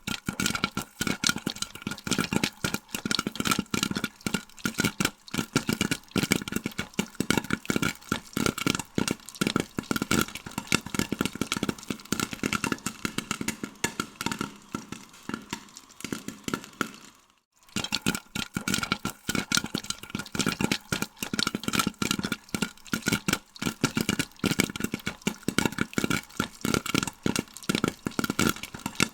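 Popcorn kernels popping in quick, irregular bursts of sharp pops, many a second, over a steady high-pitched hum. The popping breaks off briefly about seventeen seconds in, then carries on.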